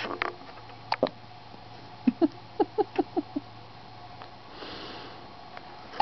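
Newborn baby hiccuping: short sudden hics near the start and about a second in, then a quick run of about seven short, pitched hics.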